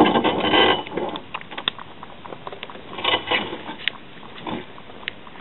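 Wood campfire crackling, with sharp pops scattered throughout. Louder, muffled bursts of noise come at the start and again about three seconds in.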